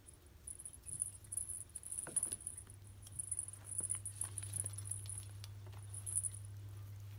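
A cat wrestling a feathered string toy on carpet: soft thumps and rustles as it pounces and rolls, over an on-and-off thin high-pitched chirping. A low steady hum comes in about a second in.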